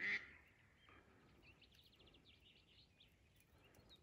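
A short duck quack right at the start. Then faint small-bird chirping over a quiet marsh.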